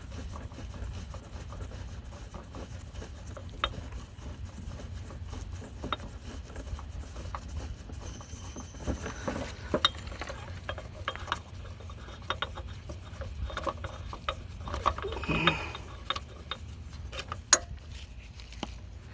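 Ratchet with a deep socket backing out an A/C compressor mounting bolt: irregular ratchet clicks and metal clinks over a low steady hum.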